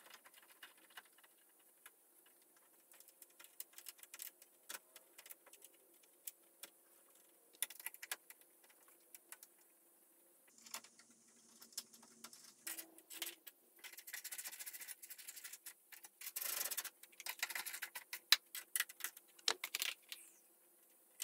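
Ratchet and socket clicking, with small metal taps and rattles, as a bolt is worked onto the mounting bracket of a car's electric auxiliary radiator fan. The clicks come in irregular runs and grow busier in the second half.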